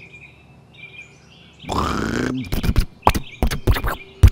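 Cartoon sound effects: faint bird chirps, then a loud whoosh with a falling tone about two seconds in, followed by a quick irregular run of sharp clicks and knocks.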